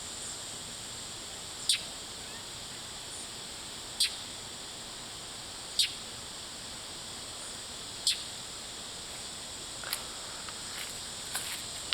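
Steady, high-pitched insect chorus of crickets or cicadas, with a short, sharp note cutting through about every two seconds.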